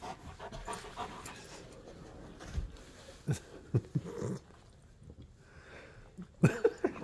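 A Rottweiler making short dog sounds close by as it noses into a blanket: a few spaced bursts, then a louder quick run of them near the end.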